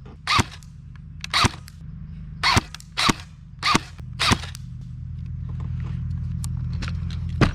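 Lancer Tactical SPR Interceptor Gen 2 electric airsoft rifle (AEG) firing single shots: six sharp snaps about a second apart, then one more near the end. A steady low hum runs underneath and grows louder in the last few seconds.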